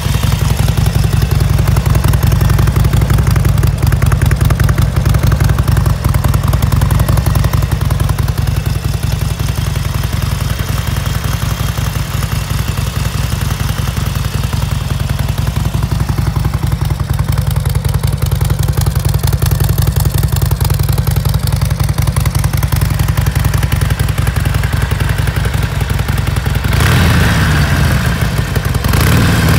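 2009 Harley-Davidson XL1200 Sportster's air-cooled 1200 cc V-twin running steadily at idle, heard close to the engine. Near the end the engine speed rises and falls briefly.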